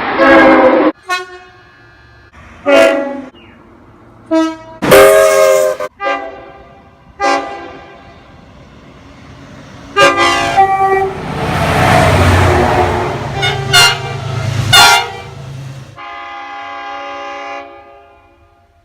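Train air horns sounding a run of short and longer blasts, each a chord of several steady tones. Around the middle the rumble of a passing train runs under the blasts, and near the end a longer held horn chord cuts off abruptly.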